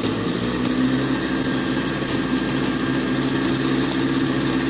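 Countertop blender running at a steady speed, its motor grinding a frozen slush of ice, Sprite and gummy candy.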